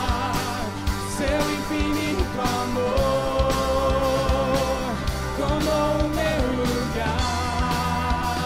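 Live worship band playing a song on drum kit, guitars and keyboard, with singers holding long sustained notes over it.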